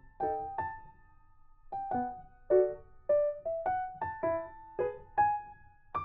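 Background music: a gentle melody of single piano-like keyboard notes, struck one after another, with a short pause about a second in.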